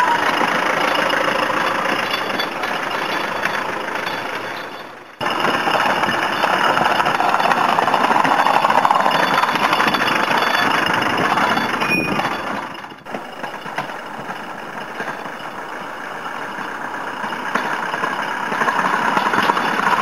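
Land Rover Defender engine running as the vehicle drives along pushing a snow plough blade through snow. The sound drops out and picks up again twice, about five and thirteen seconds in.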